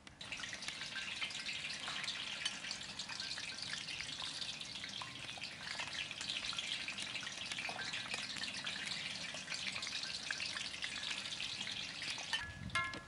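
Rice kibbeh frying in hot oil in a cast-iron pan: a steady sizzle full of small pops and crackles. Music comes in near the end.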